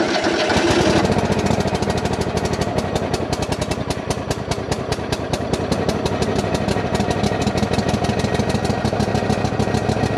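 Craftsman GT5000 riding lawn mower's engine running steadily just after starting, with an even, rapid firing beat.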